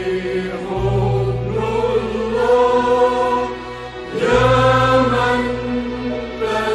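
Choir singing a slow Arabic Christian hymn to Christ, long held notes over a steady low accompaniment that drops out briefly twice.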